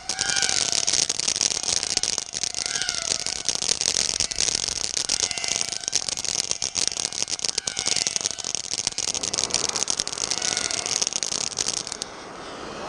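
Ground fountain firework spraying sparks: a steady hiss with dense crackling that drops off sharply near the end.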